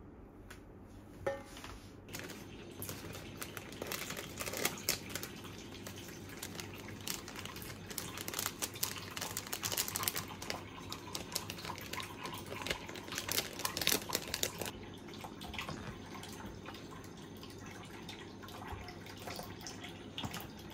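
Plastic zip-top bag of bonito flakes crinkling as it is handled and shaken out over the food, a dense run of small crackles that starts about two seconds in and dies down about two-thirds of the way through.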